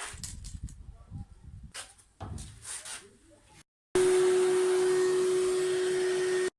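Low, uneven rumbling and handling noise, then after an abrupt cut a loud, steady machine drone with one constant pitch, which stops dead at the next cut.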